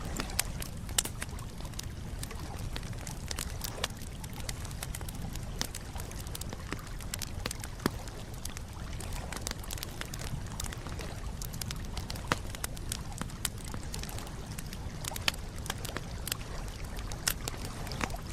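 Wood campfire crackling: irregular sharp pops and snaps, a few louder ones, over a steady low rushing of the flames.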